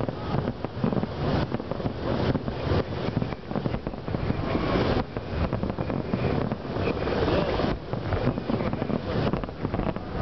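Fireworks barrage: many aerial shells bursting in rapid, overlapping bangs with no pause between them.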